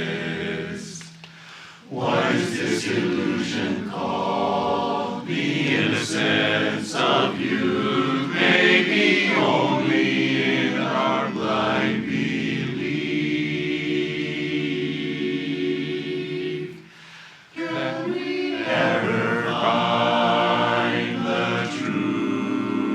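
A cappella barbershop chorus singing sustained close harmony, with a short break between phrases about a second in and another around seventeen seconds in.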